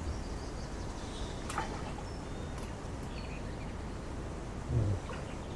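Steady wind rumble on the microphone, with a few faint bird chirps over it and a short low vocal grunt near the end.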